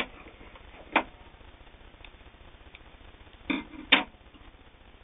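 A few sharp clicks and knocks, one about a second in and two close together near the end, with faint ticks between: hands handling the Singer 301 sewing machine and the sewn leather while the machine is stopped.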